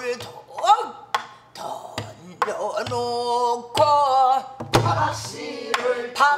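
A woman singing pansori in long, wavering held notes, with strokes on a buk barrel drum every second or so.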